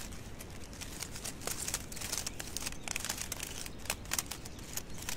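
Orange plastic mesh netting rustling and crackling as it is handled and wrapped around a young olive tree's trunk, in many short, irregular crackles.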